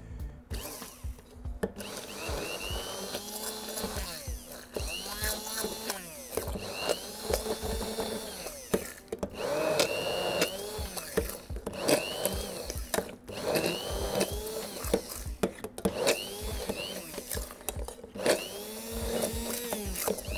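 Hand-held immersion (stick) blender puréeing tomatoes and blueberries in a steel saucepan. It is switched on and off over and over, its motor whining up and dropping back each time, with clicks of the blade against the pot.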